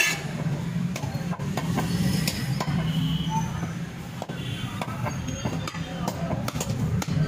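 Knife work on a beef shank at a wooden chopping block: scattered short clicks and knocks as the blade cuts meat and strikes bone and wood, over a steady low hum.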